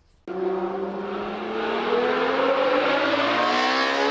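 Car engine accelerating, cutting in suddenly and rising steadily in pitch.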